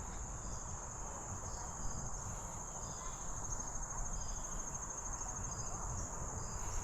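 Insects trilling in a steady, high-pitched chorus, like crickets, with a faint low rumble underneath.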